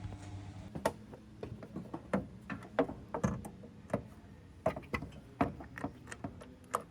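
Irregular sharp clicks and knocks of hand tools and metal parts being handled, about twenty over several seconds; a steady low hum stops under a second in.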